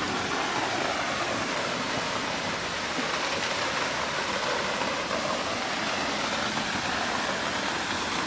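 Steady rushing of a waterfall, an even wash of falling water with no change.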